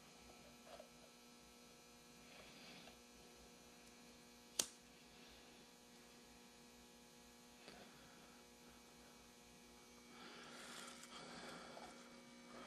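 Near silence with a steady electrical hum. A single sharp click comes about four and a half seconds in, and faint handling rustle near the end.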